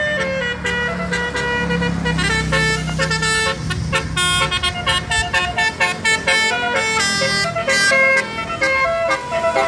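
Basuri multi-tone "telolet" musical horn playing a quick melody of stepped notes, each held for a fraction of a second, with a low hum underneath for the first few seconds.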